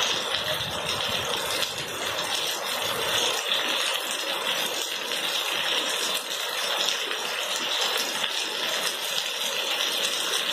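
Heavy rain falling steadily, a dense patter of drops on a wet, puddled paved yard.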